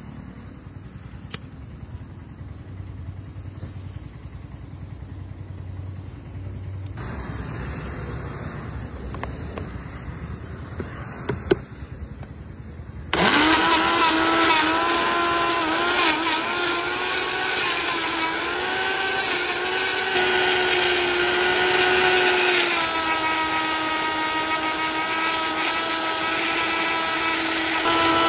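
Bosch countertop blender motor switching on about halfway through and running steadily while it blends ice cream, chocolate and milk into a chocolate shake. Its whine drops a little in pitch near the end. Before it starts there is only faint background with a few light clicks.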